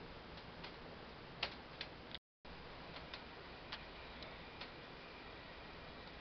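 Quiet, steady running noise inside a moving passenger train carriage, with scattered light clicks and ticks at uneven intervals. The sound cuts out completely for a moment a little over two seconds in.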